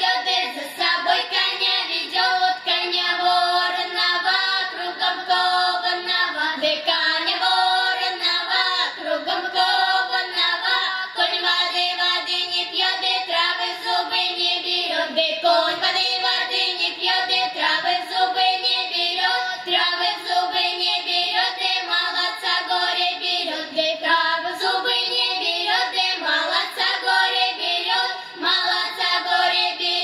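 A girls' Cossack folk-song ensemble singing, several young female voices together.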